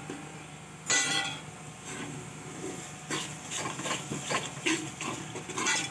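Metal spoon stirring and scraping in a metal cooking pot, in a series of strokes with the loudest about a second in, over the masala frying in oil. The masala is cooked down with its oil separating, just after dried fenugreek leaves are stirred in.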